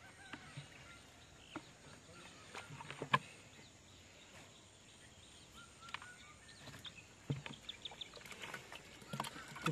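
Water and small fish tipped from a plastic bucket into shallow, weedy field water: faint scattered splashes and trickles, the sharpest about three seconds in.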